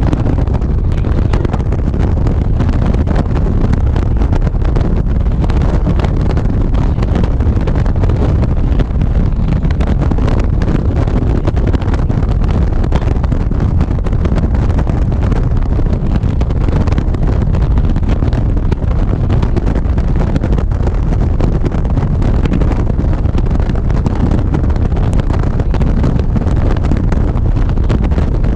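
Steady wind rushing over a motorcycle-mounted camera's microphone while riding at road speed, with the motorcycle running underneath.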